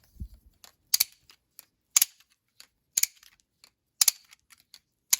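Spasmfingers Dragon plastic balisong trainer being flipped: its handles clack shut in a sharp click about once a second, with softer ticks and rattles between.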